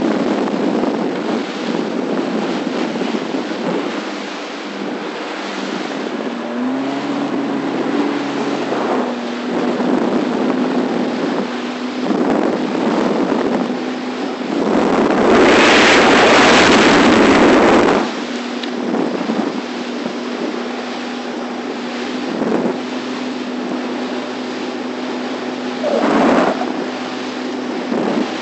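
Small boat under way on open water: its motor holds a steady low hum that shifts up briefly about six seconds in, under wind buffeting the microphone and water noise. A loud rush of wind and water noise lasts about three seconds midway, with a shorter one near the end.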